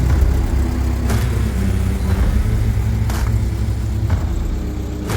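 Classic Volkswagen Beetle's air-cooled flat-four engine running steadily at low revs, with short sharp clicks about once a second.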